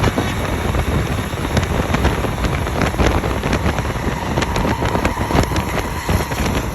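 Heavy vehicles, tour buses on a toll road, rumbling past, with wind buffeting the microphone in crackling gusts. A faint steady tone joins in about four seconds in and fades about two seconds later.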